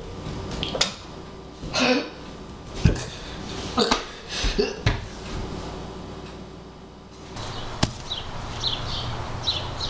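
Scattered knocks and thumps in a small room, about one a second. About seven seconds in, the background changes to a steadier low hum with a few short high chirps.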